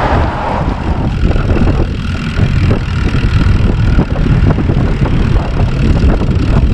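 Wind buffeting the microphone while riding a bicycle, a heavy fluctuating rumble, with scattered small clicks and rattles.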